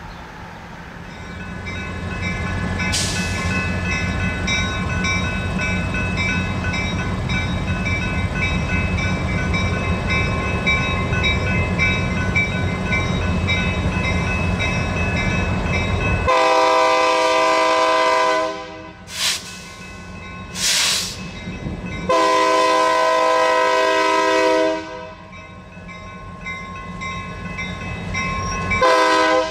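Passenger train rumbling past steadily, with faint steady high ringing tones above the rumble. Then a locomotive air horn sounds a long blast, two short blasts, another long blast, and a short blast near the end.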